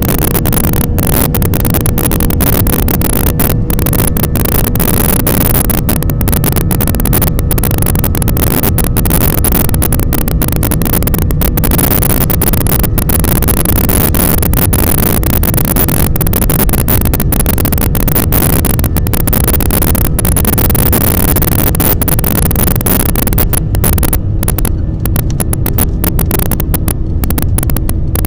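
Airliner cabin noise during the takeoff run: the engines at takeoff power and the runway rumble, loud and steady. Near the end the sound thins out and a steady hum comes in as the plane lifts off and climbs.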